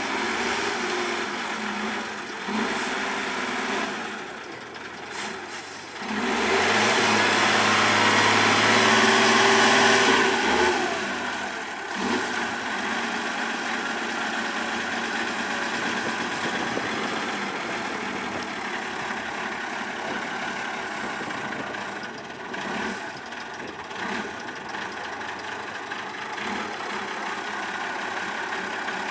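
Big diesel engine of a 6x6 off-road truck running, revved hard for about four seconds early on, then settling back to a steadier idle.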